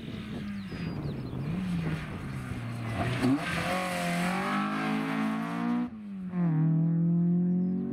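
Peugeot hatchback rally car's engine working through a bend. The engine note falls as the car slows, then revs up hard as it accelerates away, and drops sharply at a gear change near the end.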